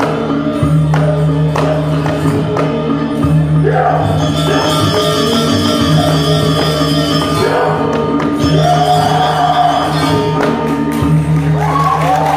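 Balinese gamelan playing the accompaniment for a Rangda dance: sustained bronze gong and metallophone tones with struck cymbal accents. A voice rises and falls over the music a few times.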